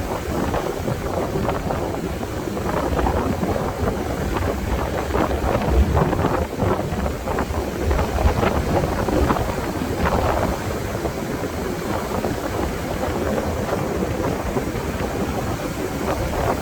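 Strong wind buffeting the microphone in steady gusts, a rumbling, fluttering roar, with the wash of ocean surf beneath it.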